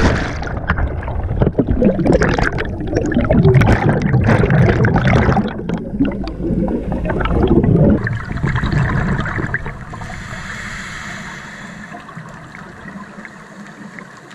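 A diver hits the water with a splash, and the camera goes under into loud churning water and bubbles for about eight seconds. After that the sound drops to a quieter steady underwater hiss.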